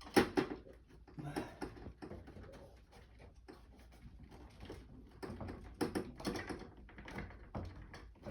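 Cordless aluminum mini blind's headrail clicking and rattling as it is worked into its mounting brackets: a run of irregular knocks and clicks, the loudest just after the start and again about six seconds in.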